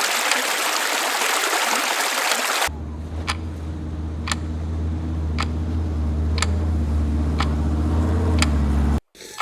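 Two sound effects in a row. First comes a loud, even rushing hiss like running water. It cuts off about two and a half seconds in and is replaced by a steady low hum with a sharp click about once a second.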